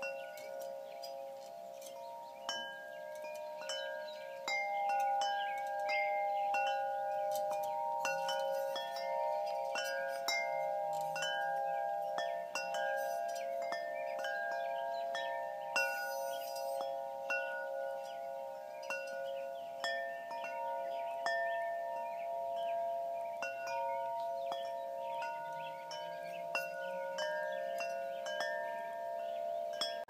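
Wind chimes ringing without pause. Frequent overlapping strikes keep a cluster of long, steady tones sounding, with higher notes chiming in and out.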